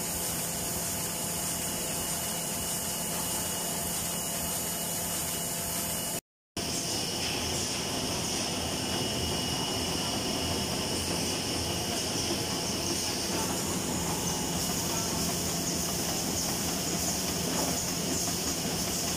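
Industrial flute laminating machine and its auto stacker running: a steady mechanical noise with a few faint steady tones. The sound drops out briefly about six seconds in, then carries on with a slightly different, brighter noise.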